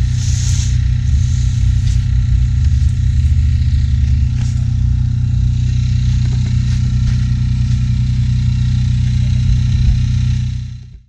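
Steady low drone of an engine running, as from the generator of a floodlight tower, with a few faint knocks. It fades out just before the end.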